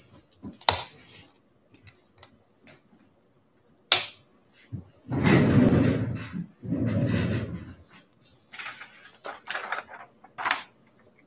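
Handling noises on a table: a few sharp knocks and clicks, two longer muffled stretches about halfway through, and scattered rustling near the end.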